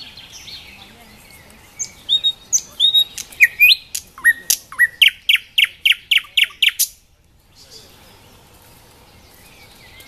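Nightingale singing: soft twittering, then from about two seconds in a loud phrase of whistled notes and sharp clicks that ends in a rapid run of about eight repeated notes, cut off abruptly around seven seconds in.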